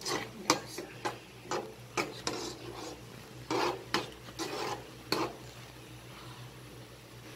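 Wooden spatula stirring and scraping thick meat-and-tomato spaghetti sauce in a non-stick pan: about a dozen short scrapes and knocks that stop a little after five seconds in, leaving a steady low hum.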